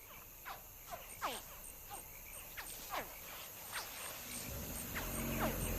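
Saltwater crocodile hatchlings calling from inside their eggs: a series of short, high chirps, each falling in pitch, at irregular intervals.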